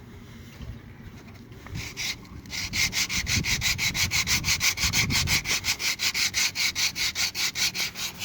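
60-grit sandpaper rubbed by hand over hard fiberglass, in quick, even back-and-forth strokes about five a second, starting about two seconds in. It is the coarse first sanding that preps a repair for gelcoat.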